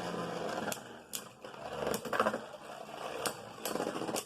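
Beyblade Burst spinning tops running in a plastic stadium, with a steady whirr and sharp, irregular clacks as they collide.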